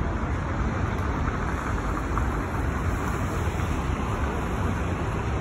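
Steady outdoor noise of the swollen, fast-running Sochi River after heavy rain, mixed with road traffic, with a strong low rumble underneath.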